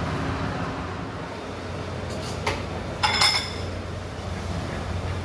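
Eatery ambience: a steady hum of fans and background noise, with a sharp knock about two and a half seconds in and a short ringing clink of dishes about half a second later.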